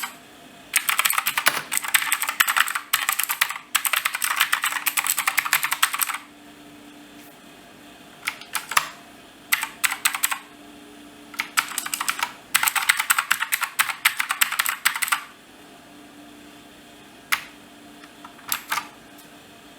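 Typing on an L. Leopard mechanical keyboard with clicky Gateron Blue switches: a rapid run of key clicks for several seconds, then shorter runs broken by pauses, and two brief flurries near the end.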